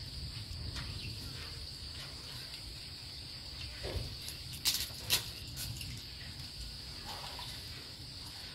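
Steady high-pitched drone of insects such as crickets or cicadas, with two sharp clicks about halfway through.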